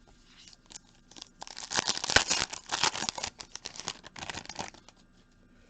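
A trading card pack's foil wrapper being torn open and crinkled by hand: a dense run of crackling from about a second and a half in, lasting about three seconds, with a few scattered crinkles before and after.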